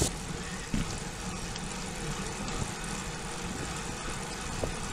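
Steady wind and road rumble from a bicycle ridden along a paved road, picked up by a bike-mounted camera's microphone.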